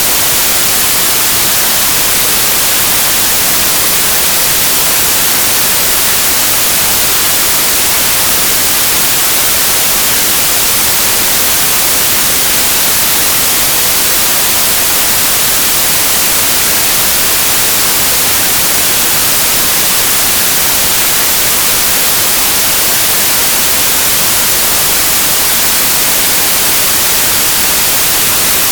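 Steady, loud white noise: an even hiss, brightest in the treble, unchanging throughout.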